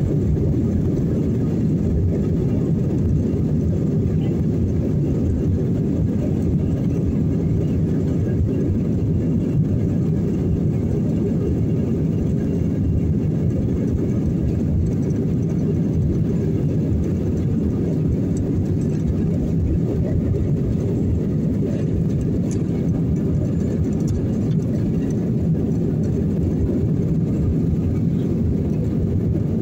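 Steady low rumble of jet engines and rushing air heard inside an airliner cabin during a takeoff.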